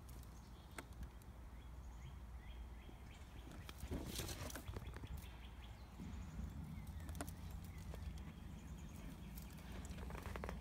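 Faint outdoor background noise with scattered short bird chirps and a brief rustle about four seconds in.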